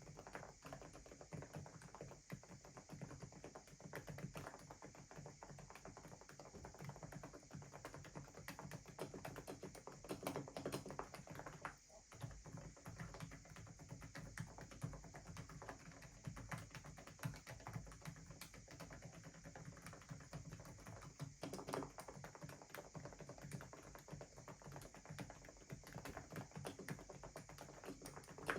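Fast, continuous typing on an Aula F87 Pro mechanical keyboard with silent switches: a dense run of soft, muted keystrokes. There is a brief pause about twelve seconds in.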